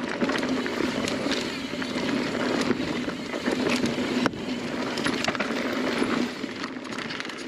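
Mountain bike riding fast down a dirt trail: steady tyre noise over dirt and leaves, with rattles, clicks and knocks from the bike over bumps, a sharp knock about four seconds in.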